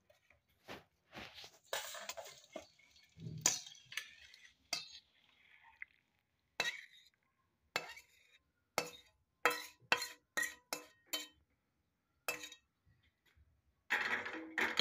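Metal spatula scraping and knocking against a steel wok and serving bowl as cooked curry is scooped out: wet scrapes at first, then a string of sharp clinks, some ringing briefly.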